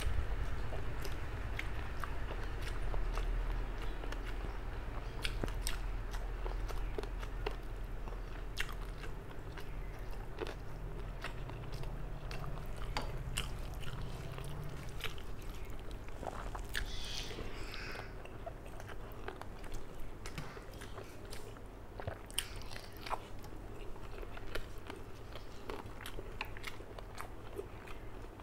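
Close-miked mouth sounds of chewing rice and curry, with many short wet clicks and smacks, while fingers mix rice on a steel plate.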